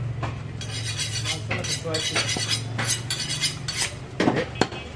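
Rapid metallic clinking and scraping of butcher's steel blades, then a couple of dull knocks of meat and tools on the wooden chopping block near the end, over a steady low hum.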